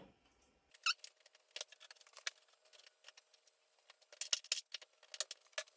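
Light scattered clicks and scrapes of a plastic controller board being slid onto metal retaining fingers inside a safe door, with a quick run of clicks about four seconds in.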